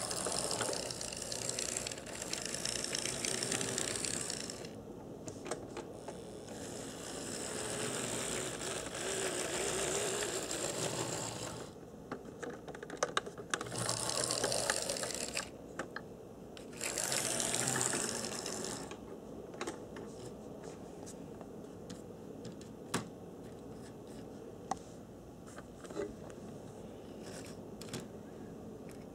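AHM HO-scale trolley's small electric motor and gears whirring as it runs on the track, coming and going in several stretches of a few seconds each. In the last third it is quieter, with a few sharp clicks.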